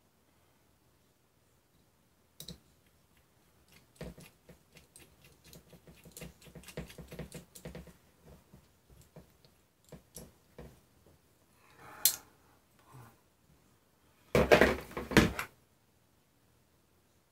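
Small tools and metal parts clicking and clattering while a racing drone's carbon frame is handled and worked on. There is a run of quick small clicks a few seconds in, a sharp click about twelve seconds in, and the loudest sound, a clatter of about a second, near the end.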